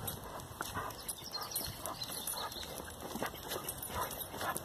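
Walking footsteps and a dog's claws tapping on a tarmac path, an uneven patter of short taps several times a second.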